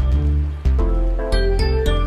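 Background music: pitched chords over a heavy bass, with a new chord struck about every two-thirds of a second.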